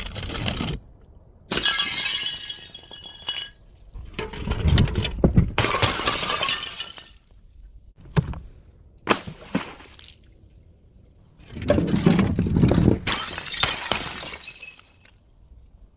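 Glass bottles smashing and shattering in a series of about six separate bursts of breaking and crunching glass, each stopping abruptly.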